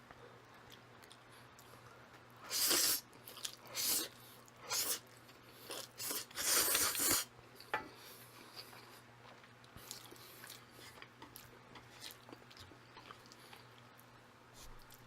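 A person slurping thick jjajang ramen noodles in about five quick hissing bursts in the first half, then chewing more quietly, with one more short slurp near the end.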